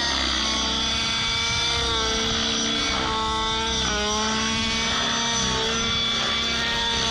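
Petrol two-stroke engine and rotors of a T-Rex 700 RC helicopter running steadily, the engine note dipping and climbing again about halfway through as the rotor load changes.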